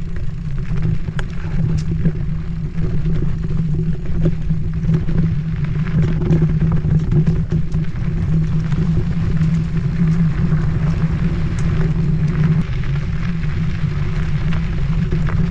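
Mountain bike rolling fast over a dirt trail: a steady low rumble of knobby tyres on dirt and air rushing past the camera, with frequent small ticks and rattles from the bike and trail grit.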